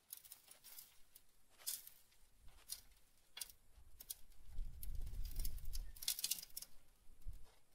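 A thin plastic tubestock pot clicking and crackling as it is squeezed and worked loose from a seedling's root ball of potting mix. A louder low rumble comes around the middle as the soil slides out into the hand.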